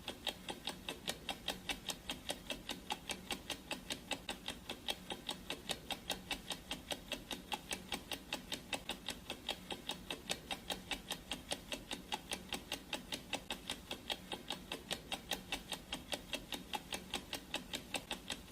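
Clock ticking sound effect of a countdown timer: fast, even ticks, about four a second.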